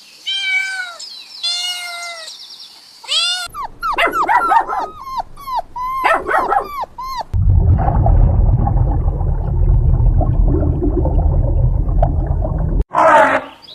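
Animal calls in quick succession: a few drawn-out bleating calls, then a run of short, high yelps and whimpers about three and a half seconds in, then a loud, steady low rumbling for about five seconds that cuts off suddenly.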